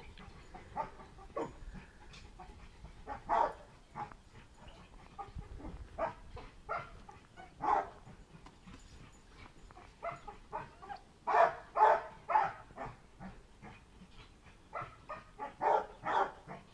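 Large mastiff-type dog barking at a decoy with a bite sleeve during protection training. Single barks come at irregular intervals, with a quick run of louder barks about two-thirds of the way through.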